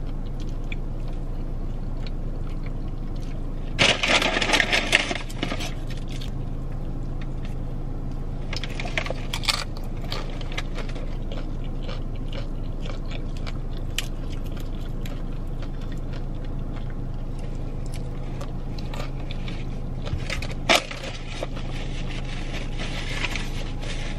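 Plastic fork scraping and scooping through food in a takeout bowl, with chewing and scattered clicks, over a steady low hum; the loudest scraping comes about four seconds in, and there is paper rustling near the end.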